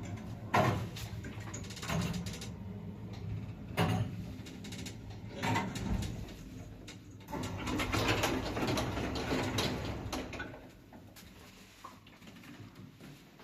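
Samarkand-built (SLZ) passenger lift machinery working: a steady low hum with a handful of sharp clicks and knocks, then a few seconds of denser rattling, after which the hum stops about ten seconds in and it goes much quieter.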